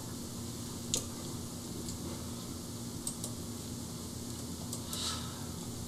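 Steady low room hum with a faint steady tone, and a few faint clicks of a computer mouse, the clearest about a second in. A short hiss near the end.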